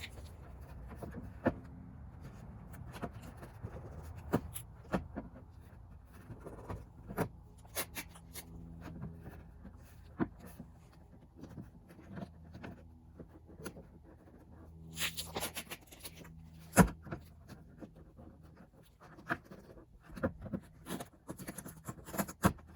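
Masking tape being pulled off the roll, torn and pressed onto plastic panels, amid scattered clicks and knocks of handling. A sharp knock a little past the middle is the loudest sound.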